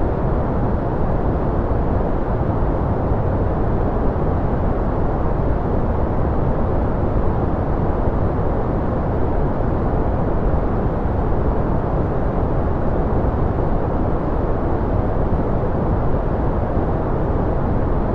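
Continuous 'white noise' relaxation track: an even, unchanging rush that is deep rather than hissy, with little high-pitched hiss.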